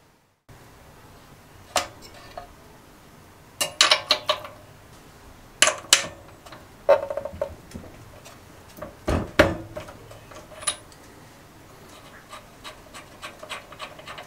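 Socket ratchet screwing a spark plug into the cylinder head of a Briggs & Stratton 2 HP engine: a series of sharp metal clinks and knocks in clusters, then lighter quick ticks near the end.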